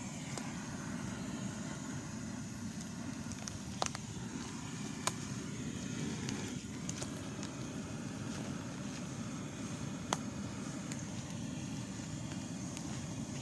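Bonfire burning with a steady low rush and scattered sharp crackles and pops, the loudest pops about four, five and ten seconds in.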